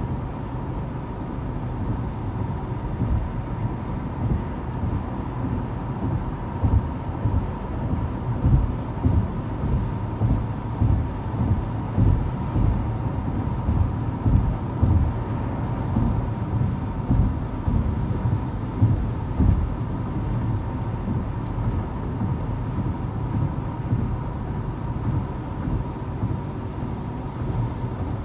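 Road noise inside a car cruising on a highway: a steady low rumble of tyres and engine that swells and dips slightly.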